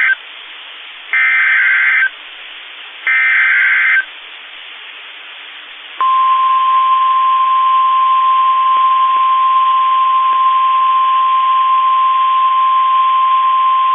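NOAA Weather Radio emergency alert: the end of one SAME digital header burst and two more buzzy data bursts, each about a second long, then a steady single-pitch warning alarm tone (the 1050 Hz Weather Radio tone) from about six seconds in, over radio hiss. The header and tone announce the tornado warning that follows.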